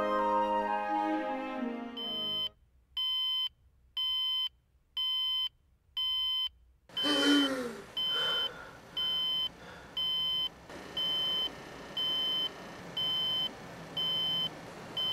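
Digital alarm clock beeping: one short, high beep about once a second, starting a couple of seconds in and keeping on.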